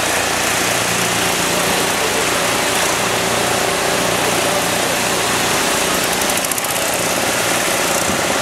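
A boat engine running steadily at a constant pitch, under a dense rushing noise.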